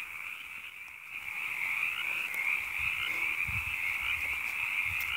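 A noisy chorus of many frogs calling together in a dense, unbroken high-pitched din. It swells a little after the first second or so.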